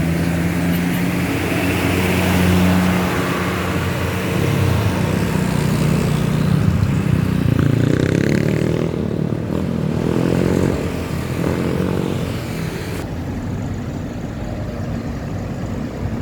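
A large bus's diesel engine running close by, then pulling away, its pitch rising several times in succession from about six to twelve seconds in, over steady traffic noise.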